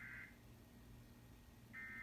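EAS SAME header: the buzzy digital data bursts that open an emergency alert, played faintly. One burst cuts off just after the start and the next begins near the end.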